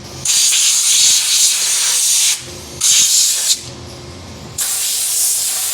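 Compressed air hissing in three sharp on-off blasts, a long one, a short one and another long one, blowing debris off a band sawmill.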